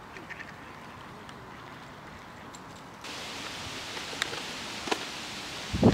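Outdoor ambience: a steady soft rush of noise that jumps up and brightens suddenly about three seconds in, with a few faint ticks and a low thud near the end.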